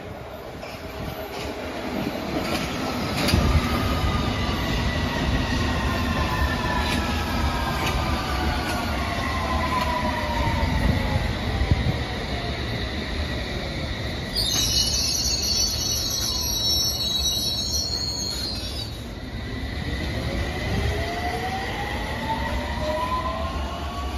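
London Underground S7 Stock electric trains running through the platforms: traction-motor whine gliding down in pitch over the first half, wheels and rails rumbling with some squeal. About fifteen seconds in comes a few seconds of high electronic tones, then the motor whine climbs in pitch again.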